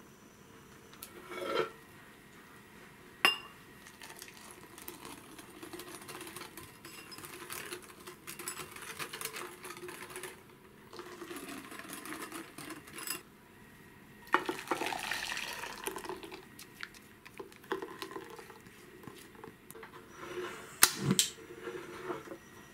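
Kitchen utensil sounds: a wire whisk beating egg yolk and sugar in a glass bowl with rapid fine scraping and clinking. Past the middle, hot milk is poured from an enamel saucepan into the bowl with a short splashing pour. Sharp clinks and knocks of the pan and utensils come near the start and a louder one near the end.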